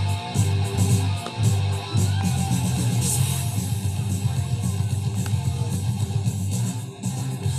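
Rock music led by guitar, over a steady bass line and a regular beat.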